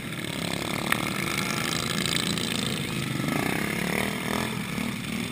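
Small engines of racing lawn tractors running as they drive past, their pitch rising and falling as they go by about three to four seconds in. A single sharp click about a second in.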